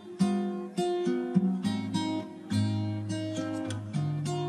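Background music: acoustic guitar, strummed and picked.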